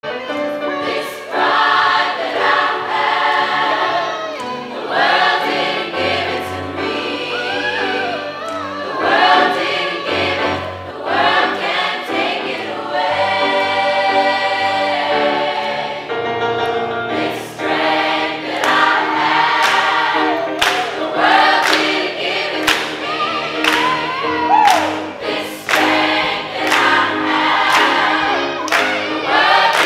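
Gospel choir of mixed voices singing an upbeat song with piano accompaniment. In the second half, sharp hand claps keep time on the beat.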